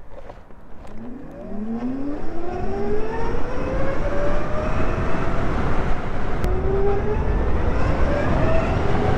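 Zero FX E electric motorcycle accelerating from low speed: the electric motor whines, rising steadily in pitch as the bike picks up speed, under wind and road noise that grows louder. The whine climbs again near the end as it speeds up once more.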